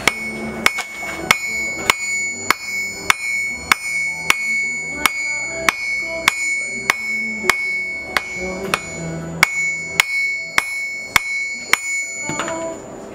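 Hand hammer forging a red-hot San Mai steel billet on a steel anvil: about twenty steady blows, roughly one every 0.6 s, each with a clear anvil ring, stopping shortly before the end. Background music plays underneath.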